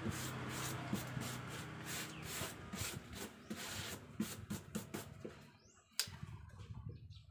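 Wire brush scraped in short repeated strokes over the carved wooden surface of a Reog barongan head; the strokes die away about five seconds in, and a single sharp tap follows near the end.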